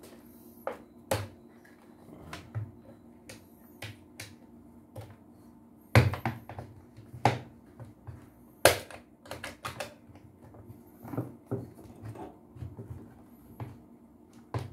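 Plastic housing and parts of a handheld vacuum cleaner being handled and fitted together on a wooden workbench: irregular clicks, taps and knocks, two of them louder near the middle, over a faint steady hum.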